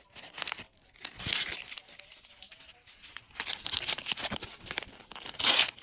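Crinkly printed plastic wrapper of a Miniverse mini-pack being torn open and crumpled by hand, in several rustling bursts, the loudest near the end.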